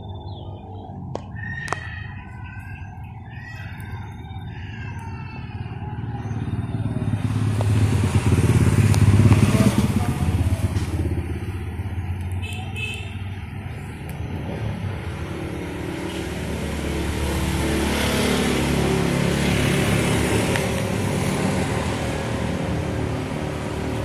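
Motor vehicles passing, their engine noise swelling to a peak about nine seconds in and again near the end. Small birds chirp in the first few seconds and briefly around the middle.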